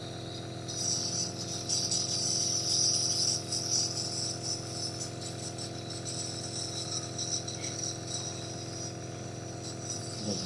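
Nebulizer compressor running with a steady hum. A higher, hissy jingling sound rises over it about a second in and fades after about three and a half seconds.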